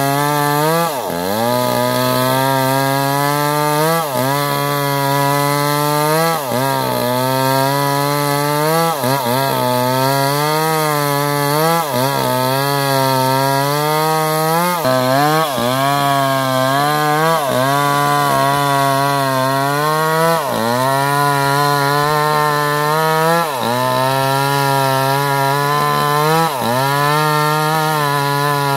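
Chainsaw engine running hard. About every three seconds its pitch drops sharply and climbs back, as the saw bogs under load in repeated cuts into wood.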